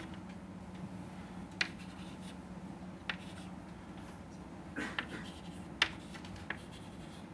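Chalk writing on a blackboard: a handful of short, sharp taps and brief scrapes as symbols are marked, over a steady low hum.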